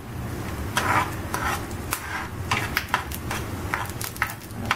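A spatula stirring and scraping peanuts and cashews frying in oil in a ceramic-coated frying pan: quick repeated strokes, a couple or so a second, over a light sizzle as the nuts roast.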